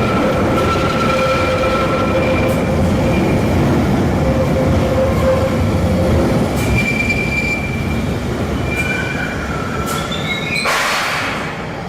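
A 1972-stock London Underground Bakerloo line train with DC traction motors running, its wheels and motors making a dense rumble under several steady whining tones. It has none of the rising and falling motor pitch of the AC-driven trains it is contrasted with. Near the end there is a sudden burst of hiss.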